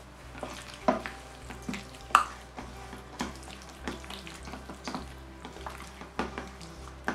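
A gloved hand squishing and turning chicken drumsticks in a thick, wet herb marinade in a stainless steel bowl: irregular wet squelches and slaps, the loudest about a second in and again about two seconds in.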